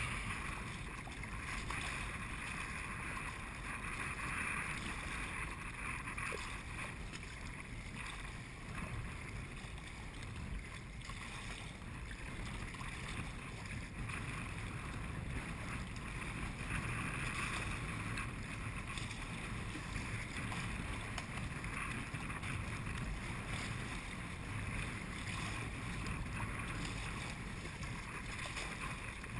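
Wind buffeting the microphone over choppy water washing against a paddled sea kayak's hull: a steady rushing noise with no break.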